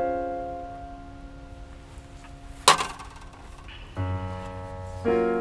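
Background piano music with slow, sustained chords struck at the start and again near the end. About halfway through, a single sharp clink, louder than the music, with a short ring after it.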